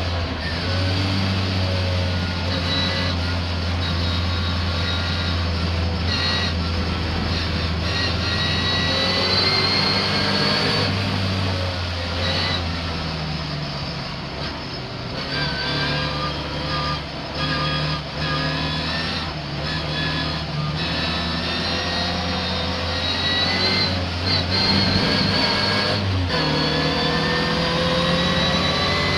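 Misfiring racing car engine running hard round a circuit. Its pitch climbs through each gear and drops back several times at gear changes, with brief breaks in the note.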